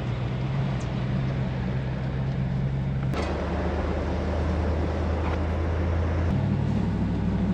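Vehicle driving on the road: steady engine drone under road and wind noise. The drone's pitch jumps about three seconds in and again near the end.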